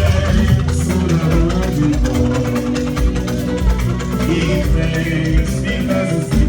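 Live music: singing over guitar, with a steady drum beat.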